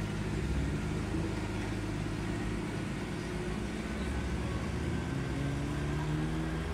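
A motor vehicle's engine running, its pitch rising a little about five seconds in.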